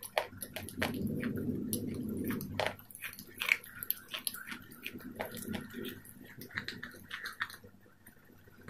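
Close-miked chewing of a raw green salad with the mouth closed: crisp crunches of lettuce and cucumber, with wet mouth clicks. The clicks are densest in the first few seconds and thin out toward the end.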